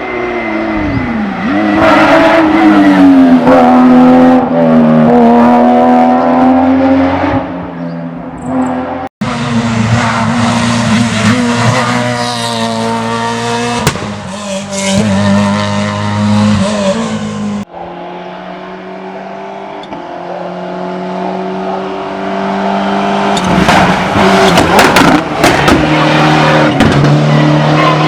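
Rally car engines at full throttle, revving hard and shifting through the gears with the pitch rising and falling, in three separate passes. Near the end comes a rapid run of sharp exhaust pops and bangs.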